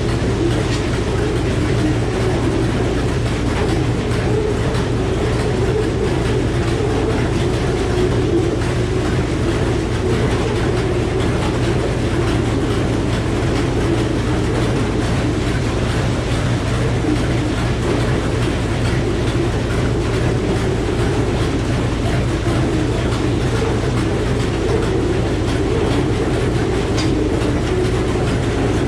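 Frick sawmill and its circular head saw running, a loud steady drone with no letup.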